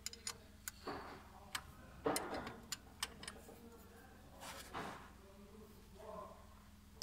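Light, irregular metallic clicks and taps of hand tools (hex key and spanner) against the engine's timing-belt tensioner and sprocket, with a few soft brushing noises between them over a faint steady hum.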